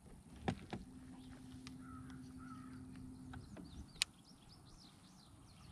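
Quiet lakeside ambience: birds calling, with two short calls a few seconds in and then a run of quick high chirps. A low steady hum runs for about three seconds, and a few sharp clicks come from fishing gear being handled on the boat, the loudest about four seconds in.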